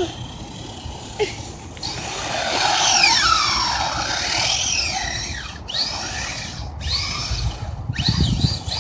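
Radio-controlled truck's motor whining, its pitch rising and falling as it speeds up and slows. The loudest sweep comes about three seconds in, followed by several shorter bursts of throttle near the end.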